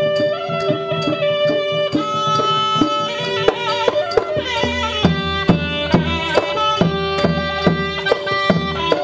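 Traditional-style music: a drum struck about twice a second under held and plucked melody notes.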